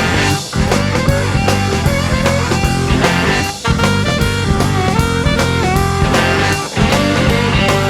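Rock band playing, with electric guitar and a drum kit. The music breaks off briefly three times, about every three seconds.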